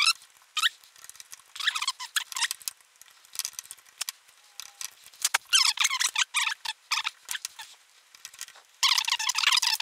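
Squeaking in several bursts as the plastic front bezel and screen window of a Lilliput 665GL field monitor are handled and pressed together, with a few small clicks between the bursts.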